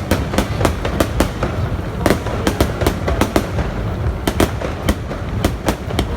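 Aerial fireworks going off: a rapid, irregular string of sharp bangs and crackles, several a second, over a steady low rumble.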